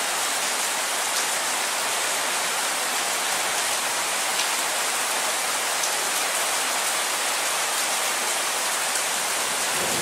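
Heavy downpour: a steady, even hiss of rain falling.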